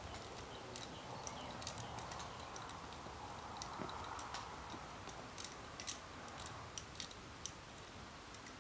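Climbing gear, carabiners and other metal hardware, clicking and clinking lightly at irregular intervals over a faint, steady hiss.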